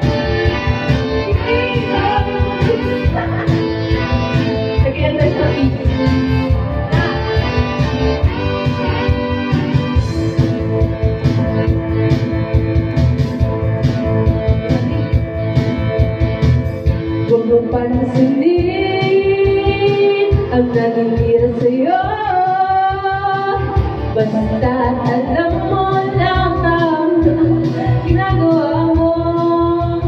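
Karaoke: an instrumental backing track with a steady beat plays, and about halfway through a young woman starts singing over it into a microphone, her voice sliding and wavering between held notes.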